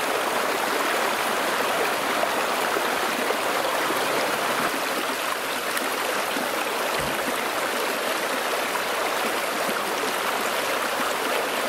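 Shallow stream rushing steadily over rocks, a continuous even wash of running water.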